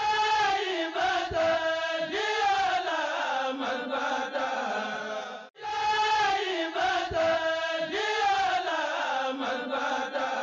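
Vocal chant: a melodic phrase chanted through once, broken off briefly about halfway, then chanted again in the same way.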